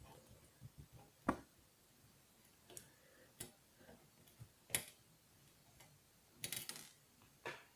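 Faint, scattered sharp clicks of a small screwdriver and tiny screws on a MacBook Pro's aluminium bottom case while the case screws are taken out, with a short run of clicks a little before the end.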